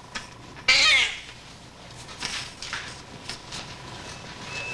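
Premature newborn baby crying: one loud wail about a second in, then fainter, shorter cries.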